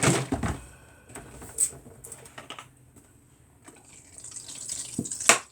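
Italian dressing being poured from a bottle, a faint liquid sound with a few small clicks, and two sharper knocks near the end.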